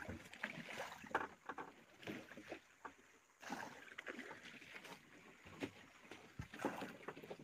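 Small fishing boat at sea: irregular knocks and splashes of water against the hull, with a brief lull about three seconds in.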